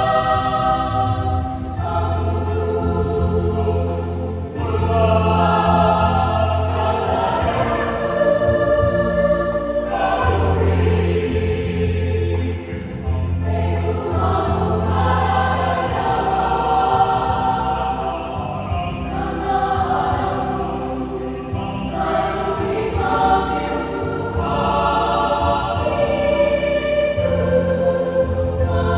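Youth church choir singing a hymn in Sumbanese in several parts, with sustained chords that change every second or two over low held notes.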